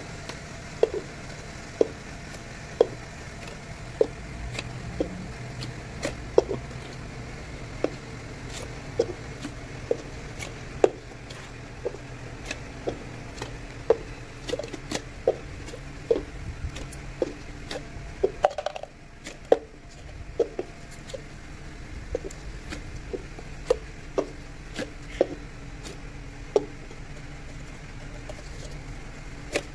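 Light plastic cups being set down and stacked upside down on brick paving, one after another: short hollow taps, roughly one or two a second and unevenly spaced, over a steady low background hum.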